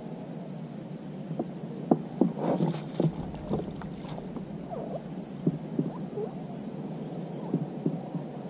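Handling noise aboard a small fishing boat: scattered knocks and clicks of gear, with a louder cluster of knocks and rustling about two to three and a half seconds in as the landing net is taken up, over a steady low hum.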